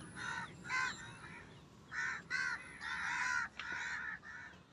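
Crows cawing, a run of short repeated caws with a brief pause about a second and a half in.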